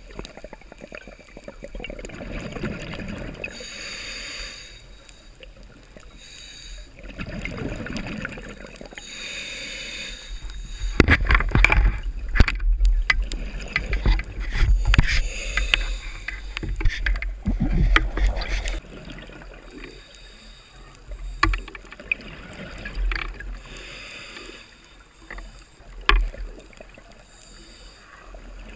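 Underwater scuba breathing: the hiss of a regulator inhale alternating with low rumbling bursts of exhaled bubbles, every few seconds. About a third of the way in, several seconds of loud knocks and rattles come as the speargun is fired and the spear and line are handled.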